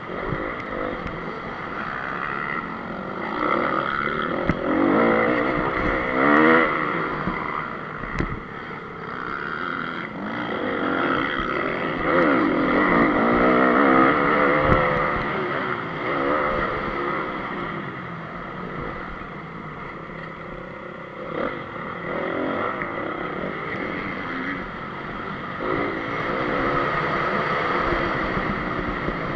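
2014 Honda CRF 250 dirt bike's single-cylinder four-stroke engine, heard onboard, revving hard and repeatedly rising and falling in pitch as the rider accelerates, shifts and backs off around the track.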